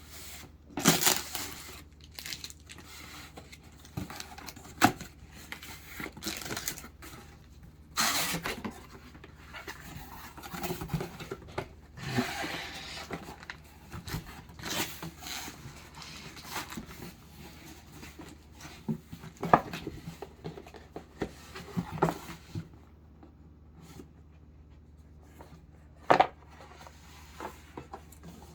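Packaging being unwrapped by hand: paper and plastic crinkling and tearing, broken by scattered sharp knocks and taps as the box and bag are handled.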